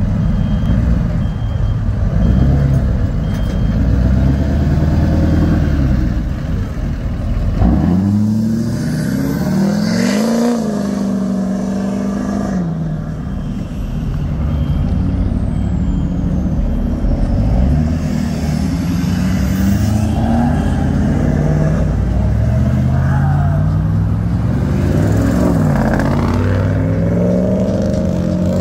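Lifted pickup trucks driving past one after another, their engines rising and falling in pitch as each goes by.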